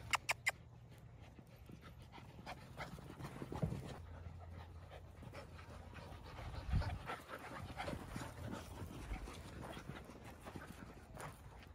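Dogs panting as they run and play, with scattered light scuffs and thumps. Three sharp clicks in quick succession open it.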